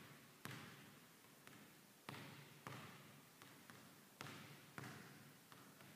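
A basketball dribbled on a hardwood gym floor, bouncing every half-second or so with some bounces harder than others. Each bounce echoes in the large hall.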